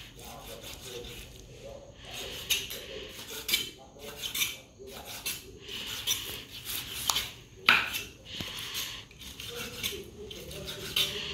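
Large kitchen knife cutting raw pig liver on a thick round wooden chopping block: repeated, uneven wet slicing strokes with knocks of the blade on the wood, the sharpest knock a little past three quarters of the way through.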